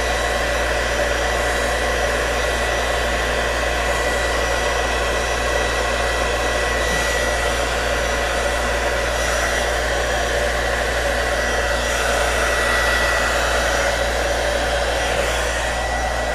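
Handheld hot-air gun running steadily: a constant rush of blown air with a thin, high whine, warming vinyl wrap so it will stretch over a curved panel.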